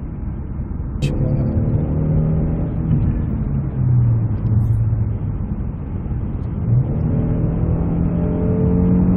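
The Genesis G330's 3.3-litre V6 pulls hard under heavy throttle, heard from inside the cabin. About a second in, after a short click, its pitch climbs, drops at a gear change near the middle, and climbs again near the end.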